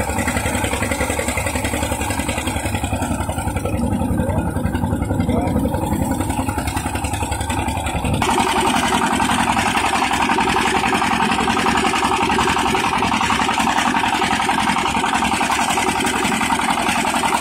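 Engine-driven rice threshing machine running steadily, a continuous mechanical din from its engine and spinning threshing drum as straw is fed through. About eight seconds in the sound becomes brighter and slightly louder.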